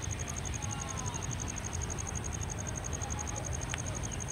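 Low, steady rumble of an Alco diesel locomotive running at low speed as it approaches, with a fast, even, high-pitched pulsing throughout and a few faint chirps.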